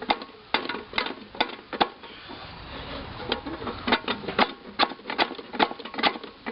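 Light metal-on-metal tapping on a crowbar wedged under a stuck lawn mower flywheel, about two sharp taps a second with a short pause partway through, as the flywheel is worked to break it loose from the crankshaft.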